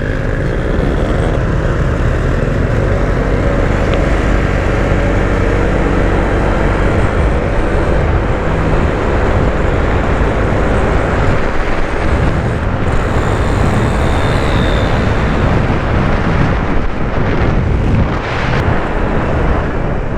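Riding noise on a Honda Vario 160 scooter: steady wind rush over the microphone with the engine and road noise running underneath.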